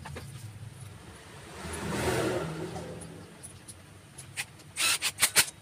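An engine-like hum swells and fades about two seconds in, then a quick run of sharp metallic clinks near the end as metal tools or parts are handled.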